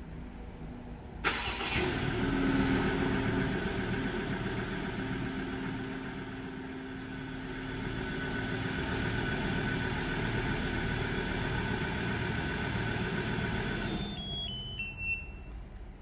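Ford Ranger engine started by remote: it cranks and catches about a second in, flares up, then settles into a steady idle. Near the end the engine shuts off, followed by a quick series of short electronic beeps falling in pitch.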